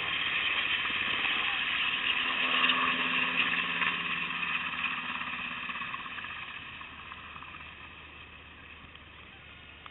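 UH-60 Black Hawk helicopter's twin turbine engines and rotors running loudly as it climbs past. The sound is loudest a few seconds in, then fades steadily as the helicopter flies away.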